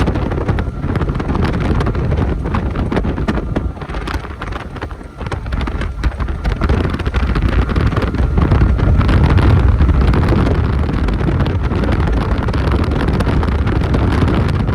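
Wind buffeting the microphone over a motorboat running across the water, a heavy low rumble. It eases off about four to five seconds in, then swells again.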